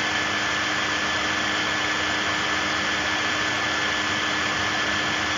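Steady hiss with a few faint steady hum tones underneath, unchanging throughout: constant background noise of the recording.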